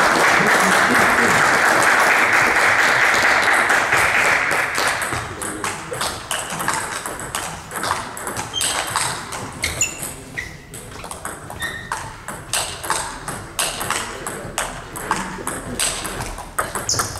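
Table tennis balls clicking sharply and irregularly off bats and tables in an echoing sports hall, from rallies at several tables. A loud burst of crowd noise fills the first five seconds and then dies away.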